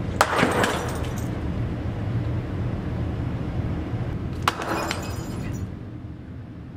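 Glass light bulbs shattering twice, once near the start and again about four and a half seconds in, each break trailed by a second of crackling fragments, over a steady low hum.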